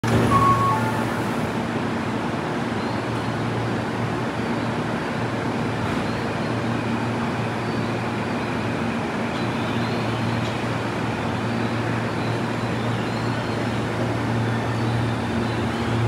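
Steady running noise of a Tobu 50090-series electric commuter train heard from inside the car: an even rumble of the wheels on the rails with a low hum.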